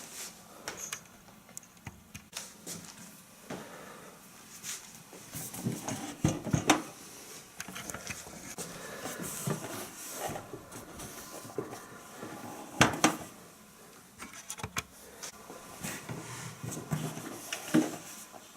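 Scattered handling noises: irregular clicks and knocks, with sharper knocks about six, thirteen and eighteen seconds in, and no fan running yet.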